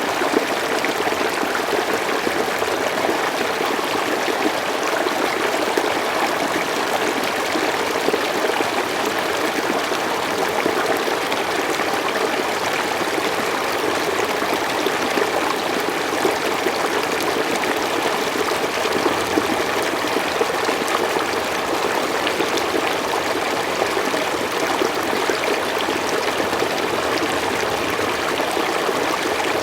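Slow forest stream running over stones with a steady trickling and babbling.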